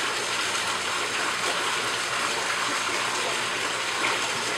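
Water running into an aquaponics fish tank, a steady splashing rush.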